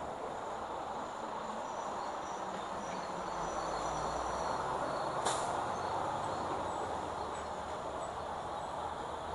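Steady hiss of traffic on a wet street, with a box delivery truck's engine rumbling low as it drives through the intersection in the middle. A single sharp click about five seconds in.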